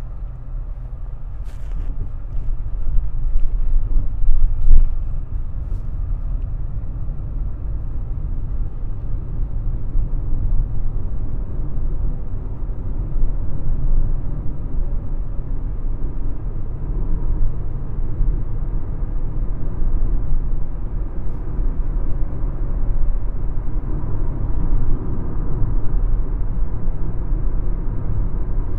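Inside the cabin of a Nissan saloon car driving along a road: a steady low rumble of engine and tyre noise, growing louder over the first few seconds and then holding steady.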